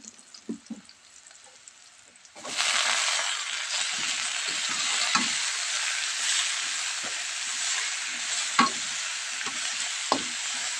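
Water spinach (kangkung) going into a hot wok of fried garlic, shallot and chili: after a quiet start with a few soft spatula scrapes, a loud sizzle starts suddenly about two seconds in and keeps going. A metal spatula stirs the greens and knocks against the wok now and then.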